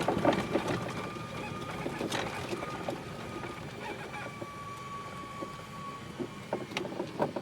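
Electric golf cart ridden from inside: a thin steady whine from the electric drive motor over the rattling and knocking of the cart's body on the ground. The whine fades after about five seconds, and a few sharper knocks come near the end.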